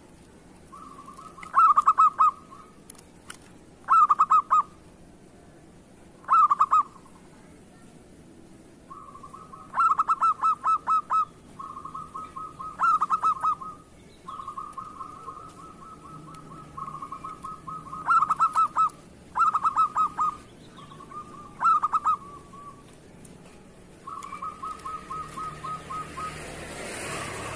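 Zebra dove (perkutut) cooing: bout after bout of quick, stuttering coo notes every couple of seconds, some loud and some softer, with a faint rush of noise near the end.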